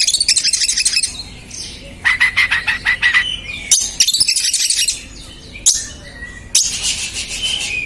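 Oriental magpie-robin (kacer) singing in several loud bursts of fast, rapidly repeated high notes, with short gaps between them: the agitated, worked-up song that bird keepers play as a lure to provoke other kacer.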